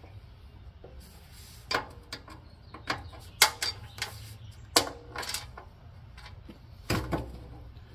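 Scattered sharp metallic clicks and knocks as the seat's steel slide bracket and shoulder bolts are handled and worked into place on a John Deere 216 lawn tractor's fender. There are about a dozen irregular knocks, the loudest about three and a half seconds in, over a low steady rumble.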